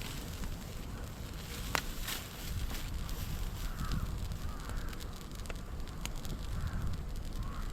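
Open fire of burning moso bamboo: a steady low rumble with sharp crackling pops a few times. A crow caws four times in the second half.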